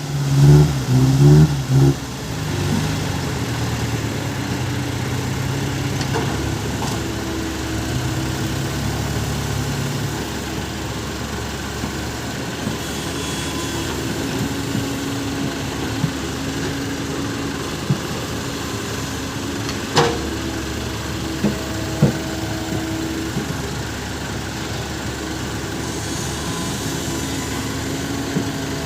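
Small six-wheeled truck's engine blipped a few times, then settling into a steady idle. A few sharp clicks come later on.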